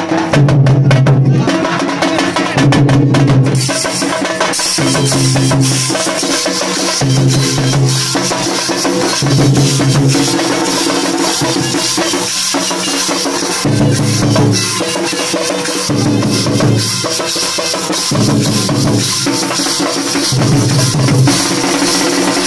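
A folk drum ensemble plays loudly: several large wide-headed drums beaten with sticks keep up a fast, dense rhythm. Sustained low pitched notes come back about every second or two.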